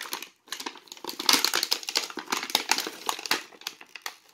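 Toy packaging crinkling and crackling as it is handled and opened, busiest through the middle and dying down near the end.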